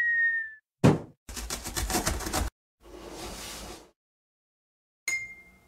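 Cartoon sound effects for an animated intro. A short, slightly falling whistle opens it, a sharp thud comes about a second in, then a rapid rattle of knocks lasts about a second, followed by a soft whoosh and a bright ding near the end that rings out and fades.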